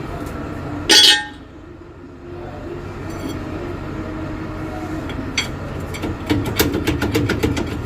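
One loud metal clank about a second in, then a run of light metallic clinks and taps from about five seconds on. These are steel parts and hand tools being handled as a bus differential's bearing caps are removed.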